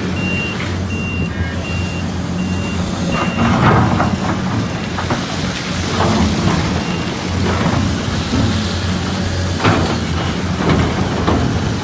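Heavy diesel engines of an excavator and truck running steadily, with a vehicle's reversing alarm beeping about five times in the first three seconds. After that come scattered knocks and clatters, typical of earth and rock being dropped during loading.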